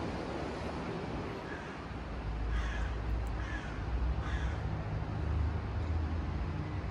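A bird calling four times, short calls about a second apart, over a steady low rumble of wind or distant traffic.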